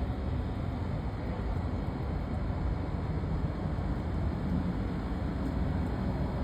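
Steady low rumbling noise with no clear pitch, unchanging in level throughout.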